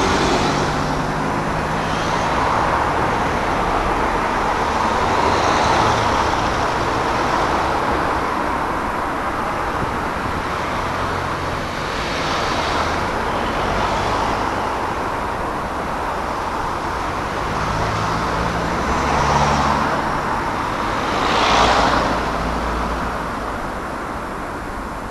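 Motor vehicles running in road traffic, with several swells as vehicles come close and pass, the loudest a little over 20 seconds in.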